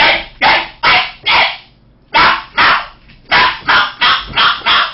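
A man imitating a dog, barking in short loud barks: four, a pause of about half a second, two more, then a quicker run of about six.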